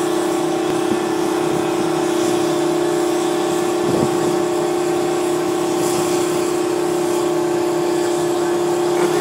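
Sicard snowblower's Detroit Diesel 12V71 two-stroke V12 running at steady high revs under load as it blows snow into a dump truck: a constant droning engine note with a whine, heard from the cab of a vehicle following behind.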